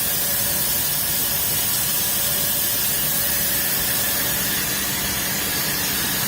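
Steady machinery noise of a running power cable extrusion line: an even hiss with a few faint steady hums beneath it.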